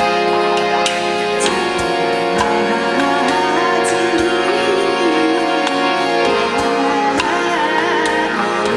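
Live ensemble music: a harmonium holding sustained reedy chords, with a gliding melody line over it and scattered light percussion strokes.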